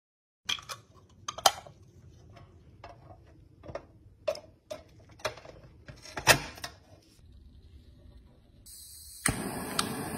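Irregular clicks and taps of hard plastic parts being handled and pressed onto a painted pressed-steel Tonka toy truck cab, the loudest about a second and a half in and about six seconds in. About nine seconds in, a brass gas torch lights and burns with a steady hiss.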